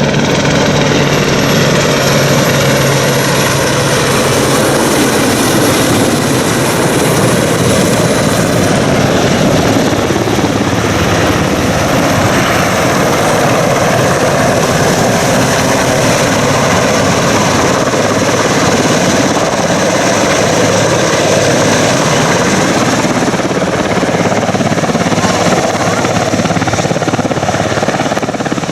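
Royal Navy Westland Sea King helicopter's rotors and turbine engines running loudly and steadily. There is a low steady hum in the first few seconds and a thin high whine in the first several seconds.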